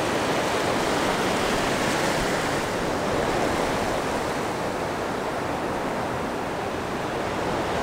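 Ocean surf: waves breaking and white water washing through the shallows in a steady rush.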